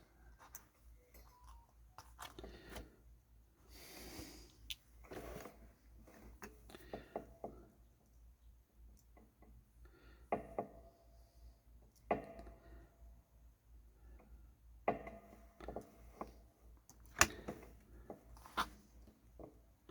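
Faint handling noise of small electronic parts at a workbench: soft rustles and a few scattered sharp clicks as diodes are fitted to a kit circuit board.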